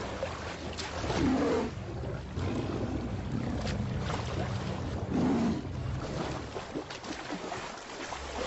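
Wild animals growling in a fight, several short low growls over a steady noisy background.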